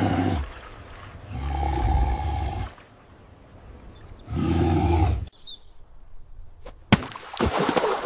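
Three deep, drawn-out roars, each a second or so long, that stop abruptly a little past five seconds in. Near the end come a few sharp knocks and a splash of water.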